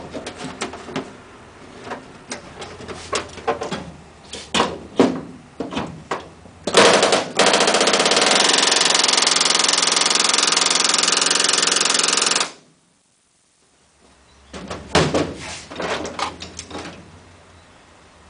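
Small metal tools and parts clinking and knocking on the aircraft's aluminium wing structure. A few seconds in, a pneumatic air tool runs loud and steady for about six seconds and then stops abruptly. More clinking of parts follows.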